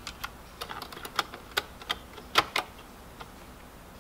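Irregular light clicks and taps, about a dozen, the loudest a little past halfway, from small plastic and metal parts of a car radio's cassette mechanism being handled on a workbench.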